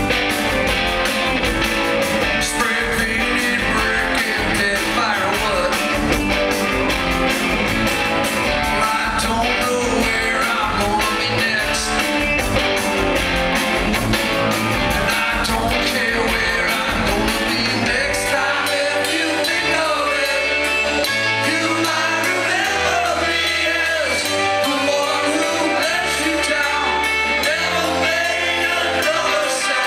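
Live rock band playing, with electric guitar, drums and a singing voice, loud and steady in level. About two-thirds of the way through, the bass thins out into separate held notes.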